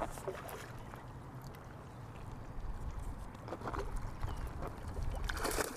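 Wind rumbling on the microphone, with scattered small clicks and a splash of water about five seconds in, from a hooked bass being fought at the surface.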